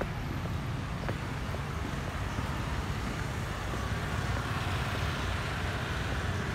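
Steady road-traffic noise: a low, even rumble with a hiss above it and no single vehicle standing out.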